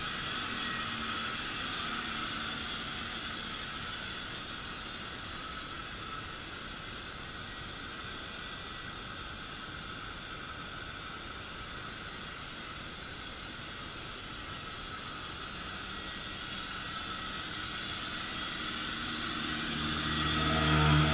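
Vacuum cleaner running steadily, a whining motor with rushing airflow; near the end it gets louder with a deeper hum, as if drawn closer.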